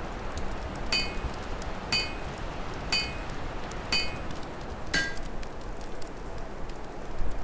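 Open fire crackling with a low wind rumble underneath, and five short ringing metallic clinks one second apart, the first four alike and the fifth lower-pitched.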